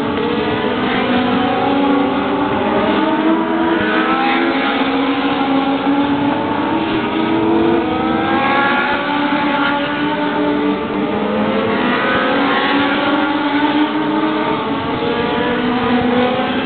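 Several race car engines running together as the cars circle an oval track, a loud, steady blend of engines whose pitch keeps rising and falling as cars accelerate and ease off around the laps.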